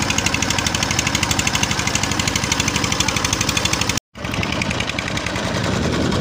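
A boat's inboard engine running steadily with a rapid, even knocking beat. The sound breaks off completely for a moment about four seconds in, then the engine carries on with a deeper rumble.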